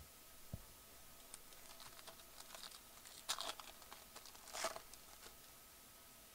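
Foil wrapper of a 2015 Bowman Draft trading-card pack being torn open and crinkled: a run of faint crackles, with two louder rips about three and four and a half seconds in.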